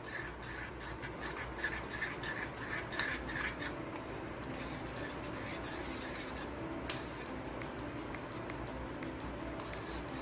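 Cornflour-and-water slurry being stirred with a small utensil in a ceramic bowl: quick light clinks and scrapes of the utensil against the bowl, dense for the first few seconds, then sparser.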